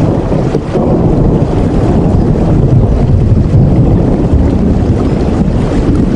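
Heavy rain, a loud, steady rushing noise with a deep rumble in the low end.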